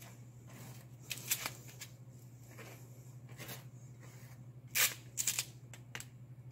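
Small hand scraper scraping and smearing wet epoxy across concrete and cardboard in a handful of short strokes, the loudest about five seconds in, over a steady low hum.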